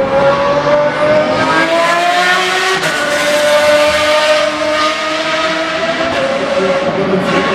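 Pagani supercar's V12 engine pulling hard under acceleration. Its pitch climbs steadily and drops back at upshifts about three seconds in and again about six seconds in.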